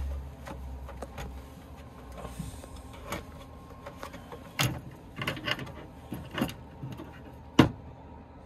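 Cloth cover being pulled off a model RC car by hand, fabric rustling with a scattering of light knocks and taps from the handling; the sharpest knock comes near the end.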